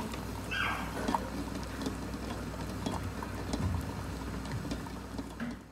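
Eggs boiling in water in a steel saucepan: a steady bubbling fizz with many small irregular ticks, over a low steady hum. A short squeak about half a second in.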